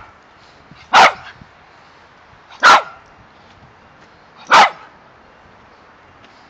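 Yorkshire terrier barking three times: single loud, sharp barks spaced about two seconds apart.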